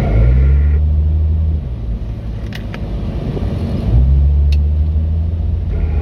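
Car driving on an icy road at night, heard from inside the cabin: a loud low rumbling drone comes in twice over the steady road noise, once near the start for about a second and a half and again about four seconds in for about two seconds.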